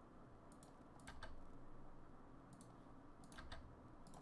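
Near silence with a handful of faint, scattered clicks from a computer mouse and keyboard keys.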